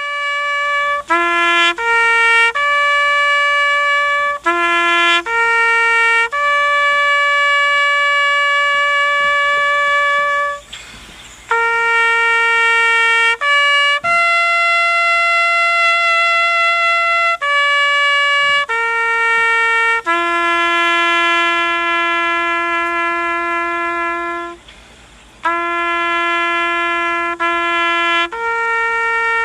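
Outro music: a slow tune of single held notes on a trumpet-like brass instrument, each note lasting one to four seconds with short breaks between them.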